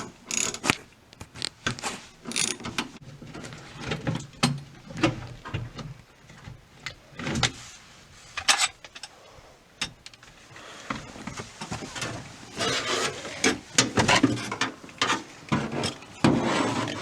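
Hand tools and metal parts being worked on the sliding van door while the door latch screws come out: irregular clicks, taps and clatter, with longer rasping stretches in the last few seconds.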